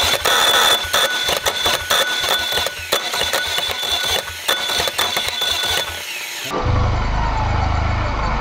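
A Kohler diesel starter's pinion gear grinding against the teeth of an already-spinning flywheel ring gear: a fast, irregular clatter of clashing gear teeth over a steady high whine. This is the grinding of a starter engaged while the engine is already running, which chews up the pinion's teeth. About six seconds in it gives way to music with a pulsing bass.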